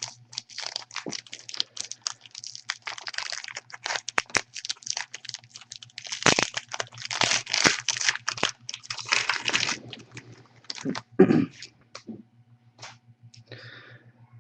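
Trading-card pack wrapper being torn open and crinkled, with cards handled: irregular crackling and small clicks, loudest for a few seconds in the middle.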